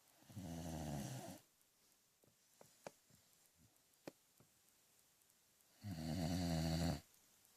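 Snoring in sleep: two rattling snores, each about a second long and about five seconds apart, with a few faint clicks in between.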